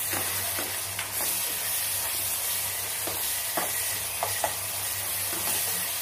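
Onions and tomatoes sizzling as they fry in ghee and oil in a deep pan, stirred with a spatula that scrapes against the pan several times.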